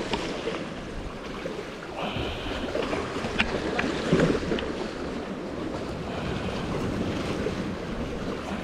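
Sea water sloshing and washing among concrete tetrapods, with wind buffeting the microphone. A few short sharp clicks sound over it around the middle.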